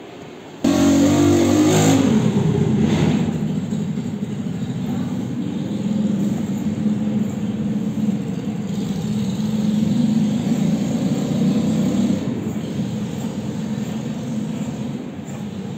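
An engine comes in loudly and suddenly about half a second in and keeps running, its speed rising and falling.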